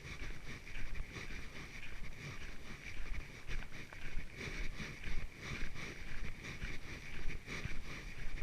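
Footsteps of a person walking on a trail, about two steps a second, with low wind rumble on the microphone.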